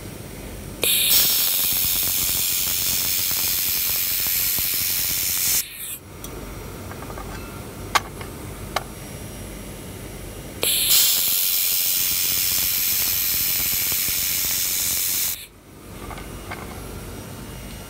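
Handheld laser welding gun welding 3 mm stainless steel: two bursts of loud hissing, each about five seconds long, that start and stop abruptly as the gun fires and stops. Between them a steady background hum carries on, with two sharp clicks in the pause.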